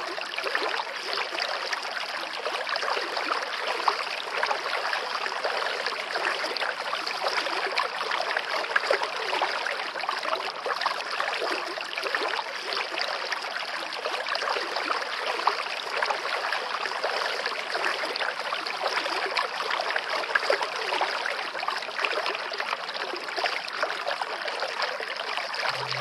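Steady running water of a stream, an unbroken babbling and trickling with no pauses.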